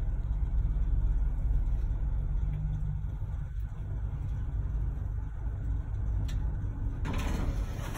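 Elevator car travelling, a steady low rumble. Near the end a brighter, fuller background sound comes in as the doors open.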